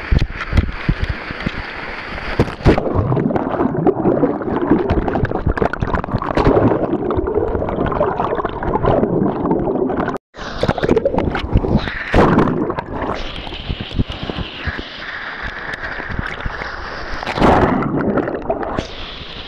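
Water sloshing and gurgling close to the microphone, with frequent knocks and bumps. The sound cuts out for an instant about ten seconds in, then carries on.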